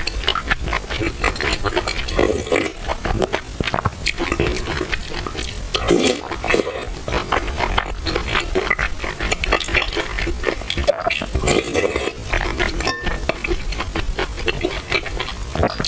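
Close-miked eating sounds: wet chewing and slurping of purple rice soaked in milk tea, with many short wet clicks throughout.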